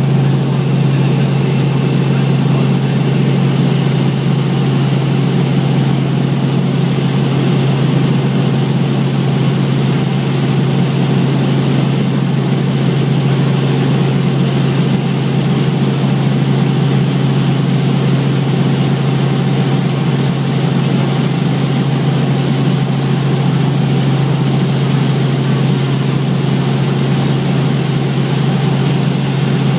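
Helicopter in steady forward flight heard from inside the cabin: the engine and rotor make a loud, unchanging drone with a strong low hum under a constant rushing hiss.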